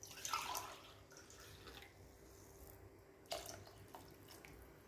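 Water poured from a cup splashing into the coconut-milk gravy in a pressure cooker pot, twice: once at the start and again about three seconds in. It is faint.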